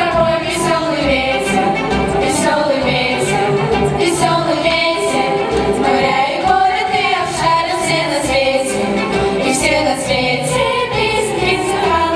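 A song with singing voices over instrumental accompaniment and a steady beat.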